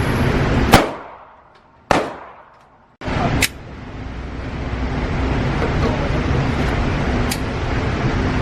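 Gunshots from a firearm at a shooting range. A loud single shot comes a little under a second in and another about two seconds in, each dying away, with fainter shots later, over a steady low background noise.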